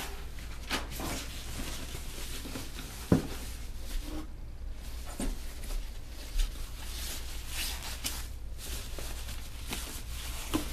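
Unboxing handling noise: cardboard box flaps and the computer case's soft packing wrap rustling and scraping as the case is lifted out, with one sharp knock about three seconds in.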